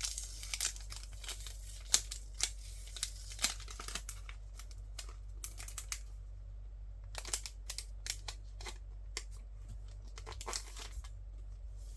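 Sticker sheets and their packaging being handled: crinkling, rustling and crackling, dense for the first few seconds, then scattered crackles, over a steady low hum.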